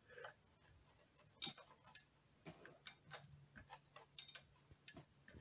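Faint, irregular metallic clicks and taps of a flat wrench working a stuck oil drain plug on a scooter's engine, with one sharper click about one and a half seconds in.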